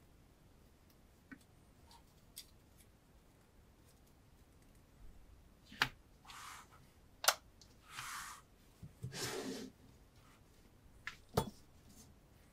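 Handling noises on a tabletop: a few faint ticks, then in the second half three sharp clicks and three short swishing strokes.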